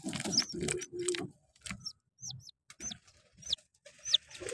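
Aseel chick peeping from inside its egg under a brooding pigeon: a string of short, high peeps, each falling in pitch, about two a second, a sign that the chick is about to hatch. A low pigeon coo sounds in the first second.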